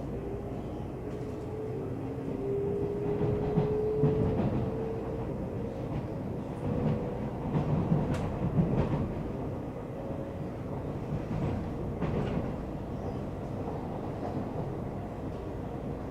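Taiwan Railway train running, heard on board: a steady rumble with a faint whine that slowly rises in pitch, and short clusters of knocks as the wheels pass over rail joints.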